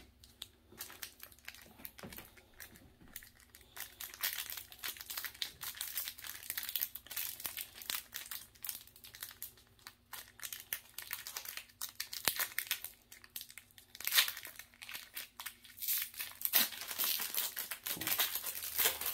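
Foil wrapper of a Pokémon card booster pack crinkling and tearing as it is worked open by hand, in irregular bursts that grow louder near the end.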